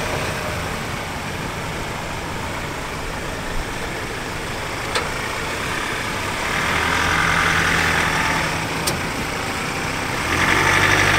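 Ford Ranger Raptor's four-cylinder bi-turbo diesel working at low speed as the truck crawls over ruts in four-wheel drive. It pulls harder for two spells, one past the middle and one at the end, with a couple of single sharp ticks between.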